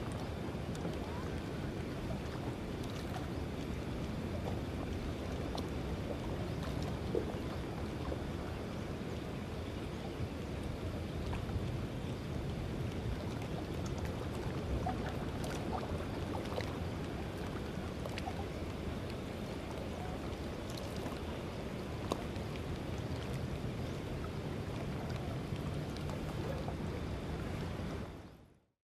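Steady outdoor rumble of wind on the microphone and water, with scattered faint clicks; it fades out shortly before the end.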